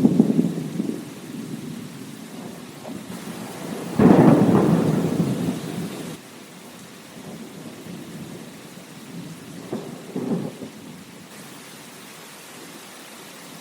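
Rain falling steadily under thunder. There is a crack right at the start, a louder one about four seconds in that rumbles away over a couple of seconds, and lighter rumbles around ten seconds in.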